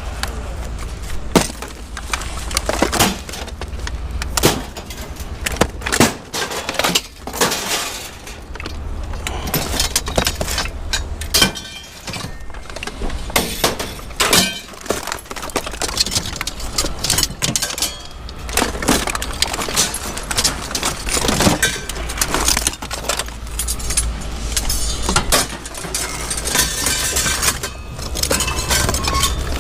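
Pieces of scrap metal being handled and tossed onto a pile, giving repeated clanks, rattles and crashes at an uneven pace, over a steady low rumble.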